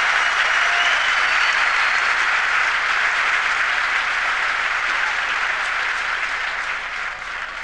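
Badminton hall crowd applauding a point just won; the clapping starts suddenly and eases off near the end.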